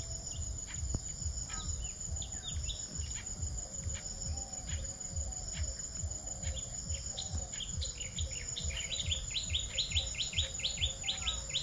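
A small bird chirping, first in scattered single notes, then from about three-quarters of the way in a fast run of down-slurred chirps, about five a second. A steady high-pitched insect drone, crickets, runs under it.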